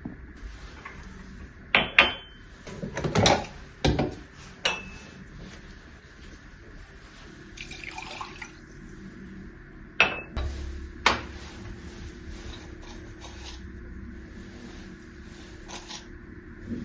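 Hard household objects being handled and set down: a cluster of sharp clinks and knocks in the first few seconds, then two more about ten and eleven seconds in, over a faint steady hum.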